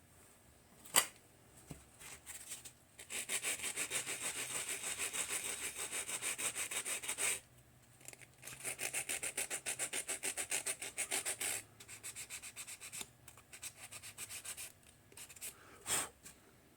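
Rapid back-and-forth scrubbing on the multimeter's corroded display contacts, in a run of about four seconds, then a run of about three seconds, then lighter strokes. A sharp click about a second in and another near the end.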